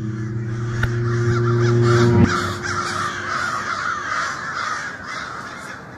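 A flock of crows cawing together in a dense, continuous chorus that fades toward the end. Under it, a low steady hum cuts off suddenly about two seconds in.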